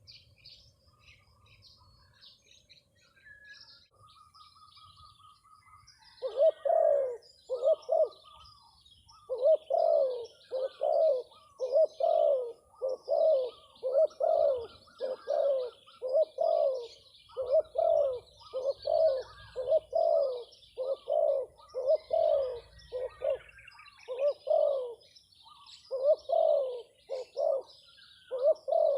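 Spotted dove (terkukur) cooing, a long run of low coos at about one a second starting about six seconds in. Small birds chirp faintly and high-pitched throughout.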